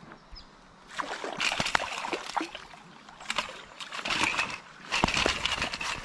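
Kayak paddle strokes in river water: splashing and dripping off the blades in repeated bursts about a second long, with short pauses between them.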